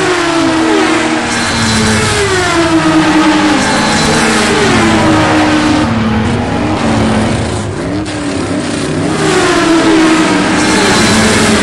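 Race car engine sound effect laid over the picture: engines revving hard, the pitch climbing and dropping again and again as they shift and rev.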